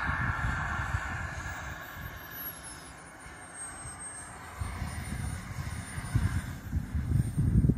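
Radio-controlled model jet's small turbine engine throttled back: a hiss fades over the first couple of seconds while a thin high whine falls in pitch and then holds steady. An uneven low rumble grows louder in the second half as the model is on the grass.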